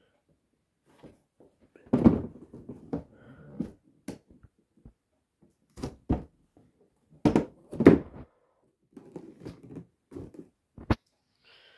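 Cardboard box being handled and turned over: irregular thumps, knocks and scraping rubs of the cardboard, with a sharp knock near the end.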